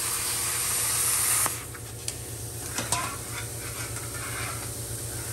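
Plasma cutter cutting through a rusty steel air cleaner lid: a loud, steady hiss that cuts off abruptly about a second and a half in as the cut ends. A couple of light clicks and knocks follow as the torch is set down.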